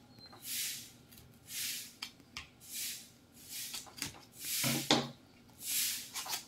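Scissors cutting through the packing tape on the seam of a small cardboard box, a short scratchy rasp about once a second.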